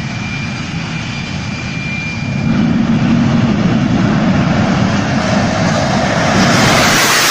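Jet engine of a jet-powered drag vehicle running at full thrust down the strip, with a thin steady whine at first; it gets louder about two and a half seconds in, and a harsher hiss builds near the end as it passes.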